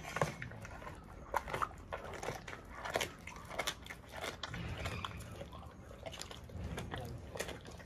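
Lion crunching and chewing raw chicken, bones and all: a run of sharp, irregular cracks and crunches between wetter chewing sounds.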